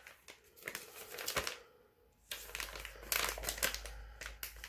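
Plastic piping bag crinkling and rustling as it is handled, in two stretches with a brief pause about two seconds in.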